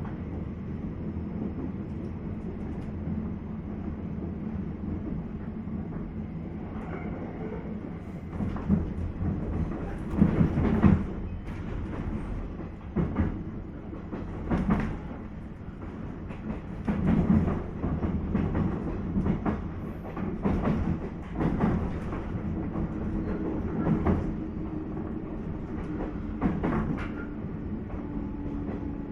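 Onboard running sound of a JR East 719 series electric multiple unit, car KuMoHa 719-1, slowing into its terminus: a steady low rumble, then from about eight seconds in irregular clacks and thumps of the wheels over rail joints and points. A steady hum comes in near the end.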